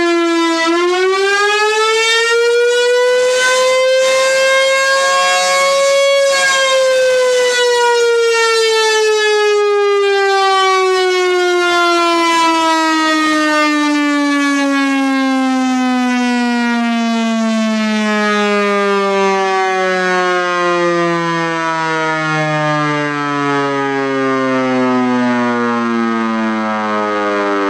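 Fort Worth Bar Grill 1000 siren chopper, blown by a pneumatic tube system blower, sounding a wail that climbs for about six seconds and then slowly winds down in pitch for the rest, with a lower second tone joining about two-thirds of the way through. The horn buzzes as it runs, which the owner puts down to broken welds.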